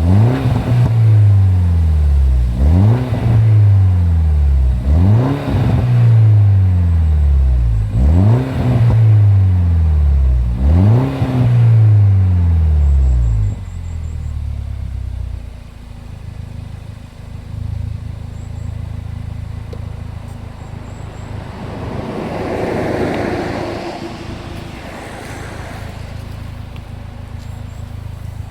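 MINI Cooper S R56's turbocharged 1.6-litre N14 four-cylinder, breathing through a Milltek non-resonated cat-back exhaust, is blipped five times about every two and a half seconds. Each time the revs rise quickly and fall slowly back. About halfway through it drops to a steady idle.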